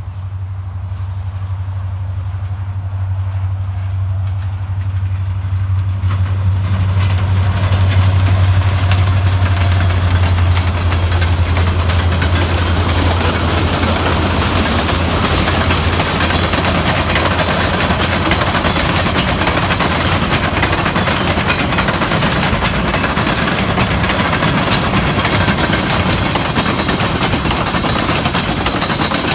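Diesel freight locomotive approaching and passing, its engine a steady low drone that grows louder over the first several seconds. Then comes the continuous rumble and clatter of a long string of freight cars rolling by, as the engine sound fades away.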